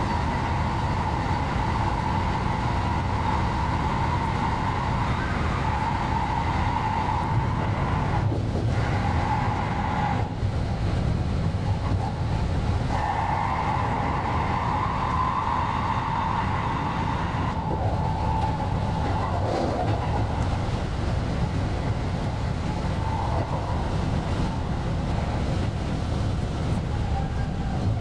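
JR West 223 series electric train running, heard from the cab and sped up fourfold: a steady rumble with a whine that holds for several seconds at a time, drops out and returns, with a brief bend in pitch a little past two-thirds through.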